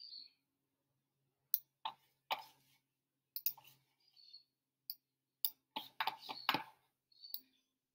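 Clicking at a computer: about a dozen short, sharp clicks, spaced out in the first half and coming quickly in a cluster a little past the middle.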